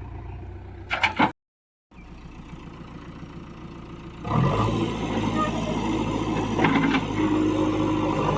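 Diesel engine of a JCB 3DX backhoe loader running, then revving up and working louder from about four seconds in. A short loud burst comes about a second in, just before a brief cut in the sound.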